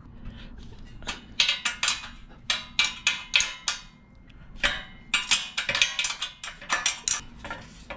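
Runs of quick metallic clicks from a 13 mm wrench working the exhaust-port nuts on a DuroMax 208cc engine as the stock exhaust comes off, several bursts with short pauses between.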